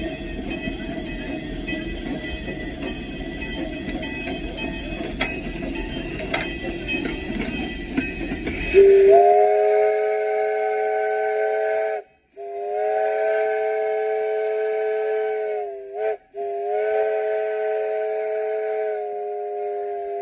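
Inside the cab of the Billy Jones Wildcat Railroad's No. 5 steam locomotive: a low rumble with regular light ticks from the running locomotive, then, about nine seconds in, its chime steam whistle sounds a chord of several notes. The whistle is blown long, long, short, long, the standard grade-crossing signal.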